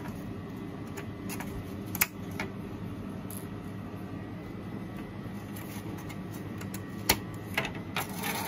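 Sharp plastic clicks and taps as yellow plastic clamps are pressed into a plastic car-stereo fascia frame and the frame is handled, the two loudest about two seconds in and about seven seconds in. A steady low hum runs underneath.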